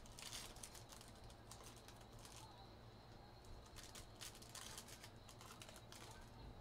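Foil trading-card pack wrapper crinkling and tearing as it is pulled open by hand, in a few short crackly bursts: near the start, around two seconds in, and again around four to five seconds in.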